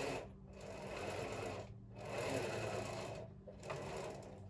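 Oil paintbrush scrubbing paint across a canvas in repeated strokes. Each stroke lasts about a second, with a short pause between, about four in all.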